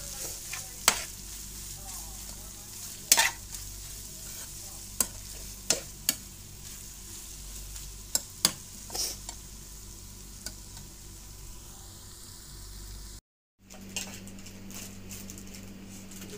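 Karela (bitter gourd) sabzi, fully cooked, sizzling in a metal pan while a metal spoon stirs it, knocking against the pan every second or two. About thirteen seconds in the sound drops out briefly, then returns with a low steady hum under the stirring.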